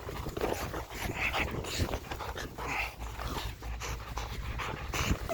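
A six-month-old Belgian Malinois puppy makes a string of short, irregular sounds as it grips and tugs a bite sleeve.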